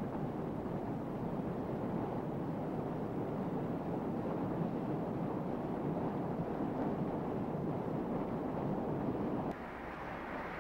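Steady rushing of a river flowing over stones, with no tones in it. About nine and a half seconds in it drops abruptly to a quieter, hissier rush.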